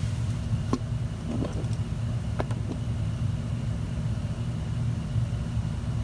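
A steady low hum with a few faint clicks in the first few seconds.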